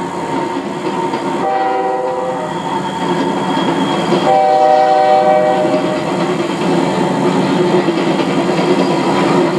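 Train passing close by with a steady rumble of cars on the rails, while the locomotive's air horn sounds twice: a short blast about a second and a half in, then a longer, louder one from about four to six seconds.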